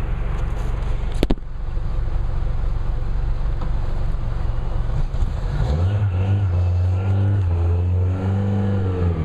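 Suzuki 115 hp four-stroke outboard motor running, with a sharp knock about a second in. About six seconds in, a stronger low engine note comes in and its pitch rises and falls as the motor is revved.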